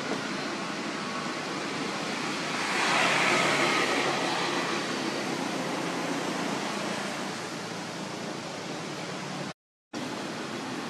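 Steady hiss of outdoor background noise, swelling for a couple of seconds a few seconds in, then cutting out to silence briefly near the end.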